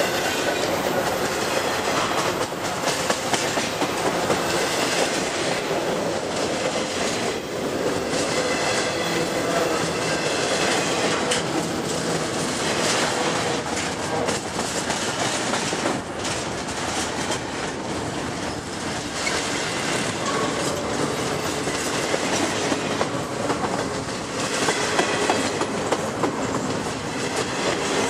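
Double-stack intermodal freight train rolling past close by: the steady rumble and clatter of steel wheels on the rails as well cars loaded with shipping containers go by.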